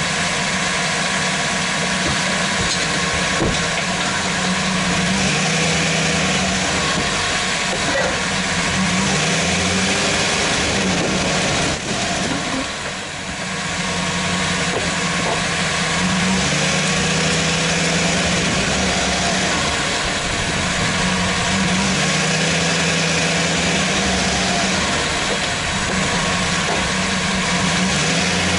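Chevrolet Silverado 1500 running, heard from under the truck at the front lower control arm: a steady mechanical rumble and noise, with a brief dip about twelve seconds in.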